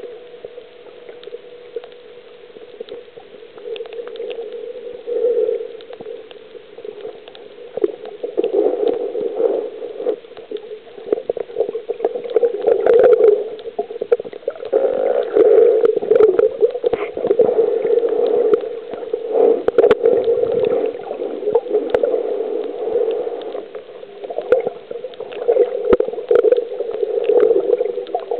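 Muffled underwater water noise heard through a waterproof camera housing, surging and gurgling in uneven swells as a snorkeler swims, with many small scattered clicks.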